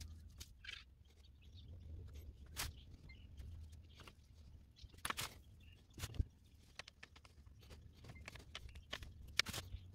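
Faint handling noises: scattered sharp clicks and soft rustles of small metal clips and plastic mesh netting being wrapped around a small wooden lure. A steady low hum runs underneath.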